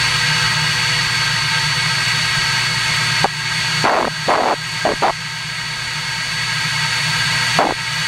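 Aerus-Centralux bagless cyclonic central vacuum running, heard from inside its canister: a steady rush of swirling air with a constant high-pitched tone. Several short, louder whooshes come about halfway through and again near the end.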